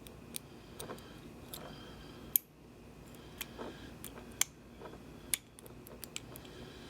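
Light, sharp clicks, roughly one a second, over faint handling noise.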